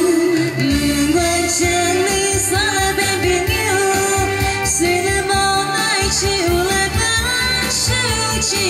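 Taiwanese Hokkien pop song performed live over a PA: a woman singing into a microphone over a backing track with a pulsing bass beat.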